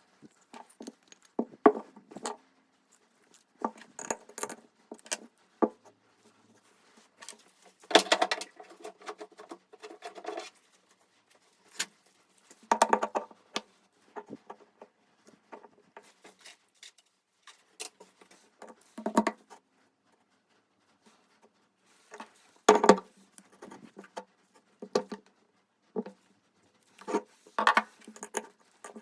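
Metal parts and tools being handled: irregular clicks, knocks and clattering scrapes in short bursts, the loudest about eight, thirteen and twenty-three seconds in.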